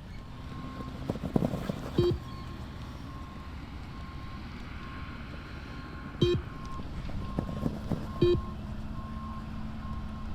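Fitness-test pacing beeper sounding a steady run of short, evenly spaced high beeps, with three louder short blips about two, six and eight seconds in.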